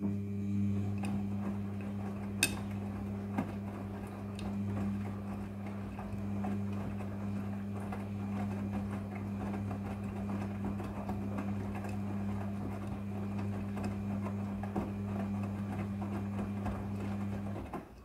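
Midea front-loading washing machine turning its drum in the wash cycle: a steady motor hum with occasional light clicks, starting suddenly and stopping near the end.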